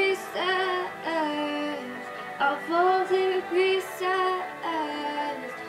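A girl singing along with a pop song, holding long wavering notes without words, over the song's recorded backing music.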